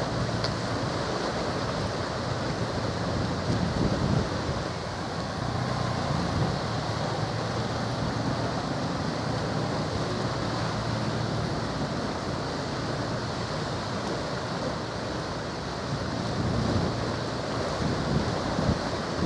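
Steady wind buffeting the camcorder microphone over a constant wash of sea noise, with stronger gusts near the end.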